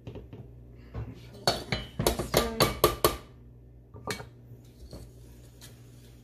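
Wire whisk clinking rapidly against the sides of a stainless steel saucepan while stirring icing, in a quick run of clinks about one and a half seconds in that lasts about a second and a half, with one more clink about four seconds in.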